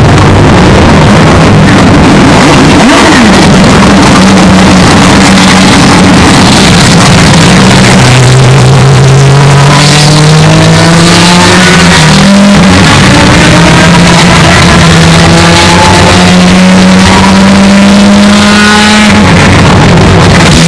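Historic Formula 1 race car engine running at high revs, its pitch climbing in several rising sweeps as it accelerates. The audio is boosted to the point of clipping, so it sounds harsh and distorted.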